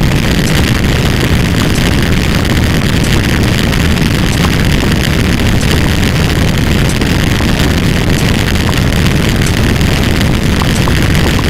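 Loud, steady, dense noise with a heavy engine-like rumble that does not let up.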